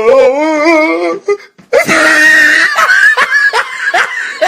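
Meme sound-effect clip of a person laughing: a wavering, drawn-out vocal sound for about a second, then after a short break a loud burst and a run of quick laughs, about two or three a second.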